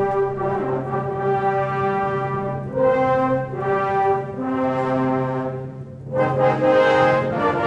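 Slow brass music: held brass chords in phrases of about two seconds, with a short lull about six seconds in before the sound swells again.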